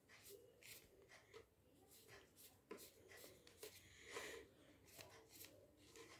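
Faint, irregular scratchy strokes of a paintbrush worked over a leaf laid on newspaper, with light rustling of the paper.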